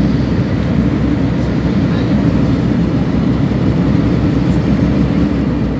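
Steady low rumble of a car ferry's engines as the ferry pulls away from the landing and turns.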